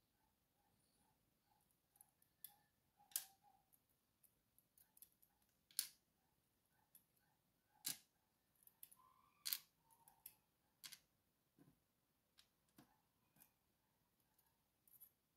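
Faint, irregular small metallic clicks and taps of steel tweezers against a Schlage Primus lock core and its small pins during disassembly.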